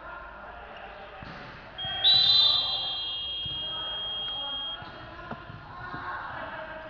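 Gym game-clock buzzer sounding one steady high tone for about three seconds, starting about two seconds in, shrill and loudest in its first half second. Basketball bounces and players' voices echo around it in a large hall.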